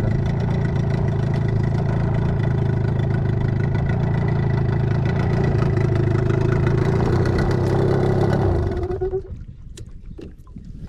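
Small boat outboard motor running steadily, then shut off about nine seconds in, its pitch falling away as it stops. A few light clicks and knocks follow.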